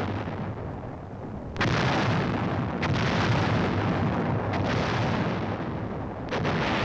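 Heavy artillery fire: four sharp booms a second or two apart, each trailing into a long rumble, with the rumble of an earlier blast dying away at the start.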